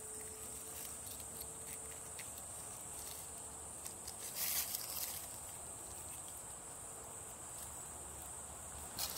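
Steady, high-pitched chirring of insects in the woods, with a brief rustle of dry leaves and pine needles about four and a half seconds in and again at the very end as a hand handles a mushroom on the forest floor.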